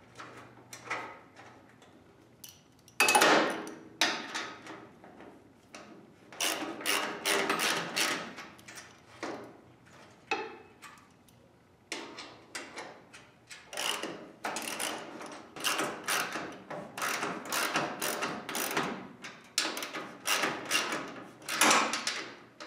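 Hand ratchet clicking in repeated runs of quick strokes as bolts are turned in and tightened, with the loudest strokes about three seconds in and near the end.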